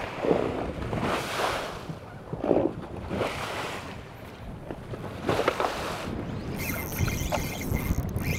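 Choppy lake water slapping against a fibreglass bass boat's hull in irregular surges, with wind buffeting the microphone. Near the end, cloth rubs close against the microphone.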